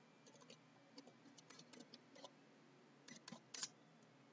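Faint computer keyboard keystrokes: a scattering of soft, irregular clicks, a few more together near the end.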